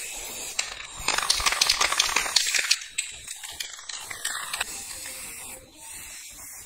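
Aerosol lacquer spray-paint can spraying with a hiss. The hiss is loudest in a long spray about a second in, then continues in shorter, quieter spurts.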